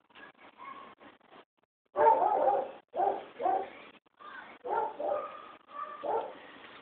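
A dog barking repeatedly in a series of separate barks, the loudest about two seconds in.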